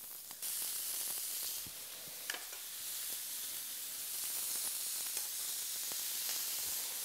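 Lamb rib chops sizzling on a hot ridged bulgogi grill pan: a steady hiss with a few faint crackles, getting louder about half a second in.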